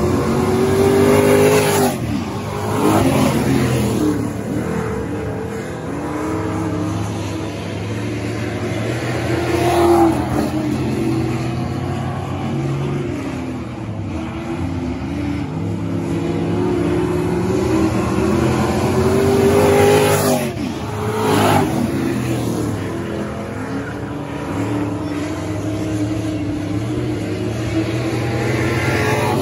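Several dirt-track stock cars racing around the oval, their engines rising and falling in pitch as they accelerate and lift off for the turns. The pack passes close by roughly every ten seconds, louder each time.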